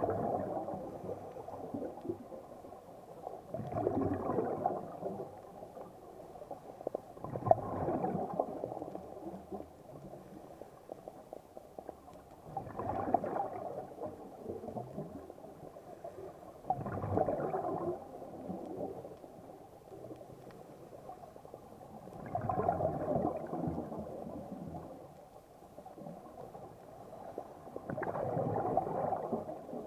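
Scuba diver's regulator exhausting exhaled breath, heard underwater: a burst of bubbling about every four to five seconds, each lasting a second or so, muffled and low.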